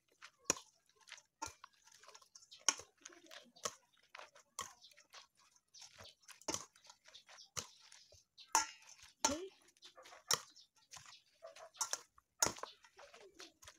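Metal spoon clinking and scraping against a stainless steel bowl while shredded cabbage is mixed into beaten egg, with soft wet squishing of the cabbage between the clinks. The sharp clinks come irregularly, about once a second.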